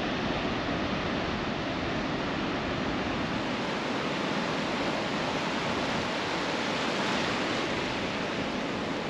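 Steady wash of ocean surf breaking on a sandy beach, an even rushing noise with no distinct single waves standing out.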